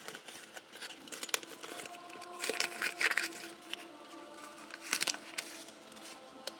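Close handling noise: paper rustling and scraping with small knocks and clicks as a camera is shifted about against a drawing sheet, with louder bursts about two and a half seconds in and again around five seconds.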